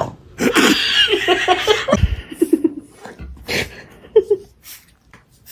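A person laughing in a run of short, quick bursts, fading into a few scattered clicks near the end.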